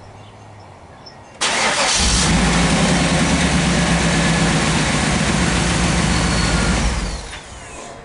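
Starter cranking briefly about a second and a half in, then a 1995 Camaro Z28's 5.7-litre LT1 V8 firing and running, before the sound falls away near the end. The car starts readily on a freshly installed battery.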